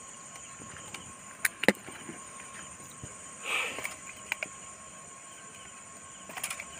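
Crickets trilling steadily in the evening, with a few sharp clicks and a short rustle about halfway through as fish and tackle are handled.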